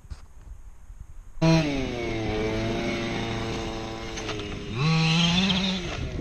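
A small motor comes in suddenly about a second and a half in and runs at a steady pitch, then revs higher near the end.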